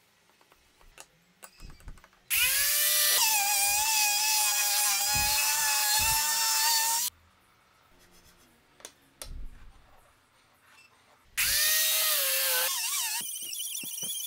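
Makita angle grinder with a sanding disc spinning up to a loud, steady high whine, running about five seconds and cutting off suddenly. It starts again near the end, and its tone changes to a higher, wavering squeal. Only faint ticks sound in between.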